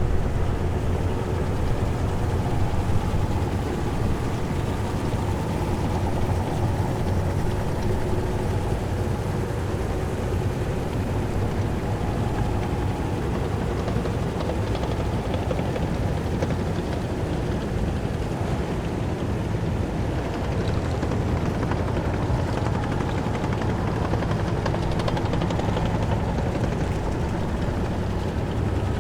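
Heavy military vehicle engines running in a column: a steady, loud low rumble with engine tones and no break.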